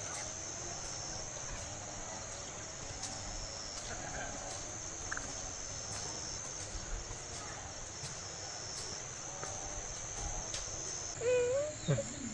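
Insects chirring, a steady high-pitched chorus without a break that shifts slightly higher in pitch near the end. A person's voice briefly breaks in near the end.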